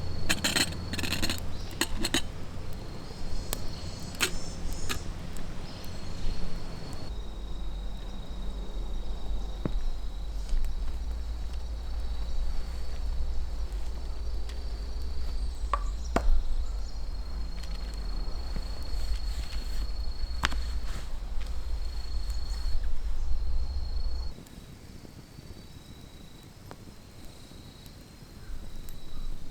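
Crickets trilling steadily at one high pitch over a low rumble, with scattered sharp knocks and clicks. The rumble drops away for a few seconds near the end.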